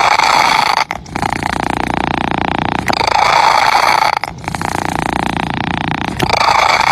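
Domestic cat purring, a loud continuous rasping drone that swells and eases in turn, louder stretches alternating with softer ones every second or two as the cat breathes in and out.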